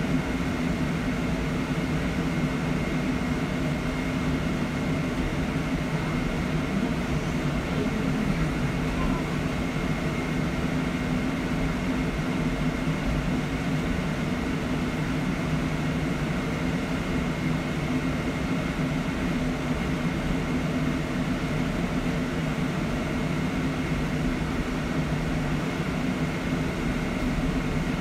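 Upper-deck interior of a BYD ADL Enviro400EV battery-electric double-decker bus on the move: steady running and road noise with no engine note, and a faint steady high tone throughout.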